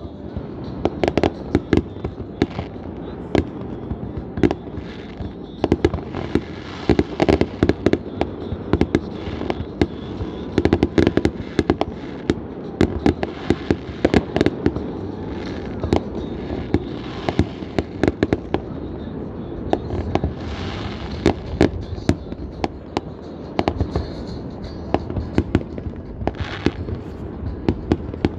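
Aerial fireworks display: many sharp bangs in quick succession from shells bursting, over a continuous low rumble.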